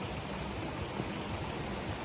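Steady rain and river water, an even hiss with a low rumble underneath.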